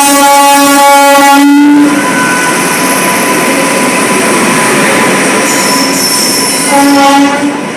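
Train horn sounding a long, steady blast that stops about two seconds in, then the noise of the train running, with a high squeal of wheels on the rails and a short second horn blast near the end.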